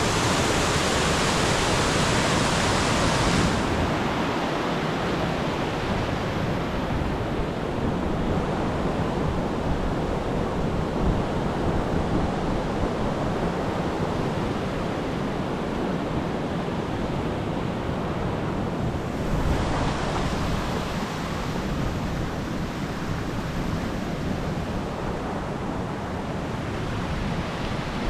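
Mountain stream rushing steadily over rocks, with wind buffeting the microphone. The bright hiss of the water drops off sharply about three seconds in, and the sound shifts again about two-thirds of the way through.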